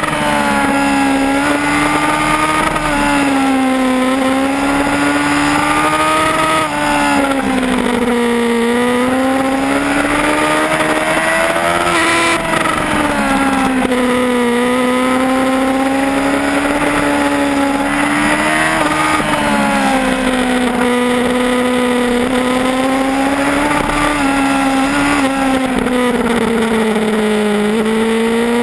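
Yamaha R1 sportbike's inline-four engine running hard at high revs, heard onboard; its pitch rises and falls over a few seconds at a time as the bike brakes and accelerates through the corners, with a steady rush of noise underneath.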